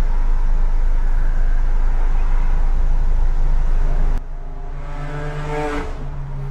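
Steady low hum inside a parked vehicle's cabin with the engine and fan running, dropping abruptly to a lower level about four seconds in. A woman gives a short, wavering, tearful sob a little after that.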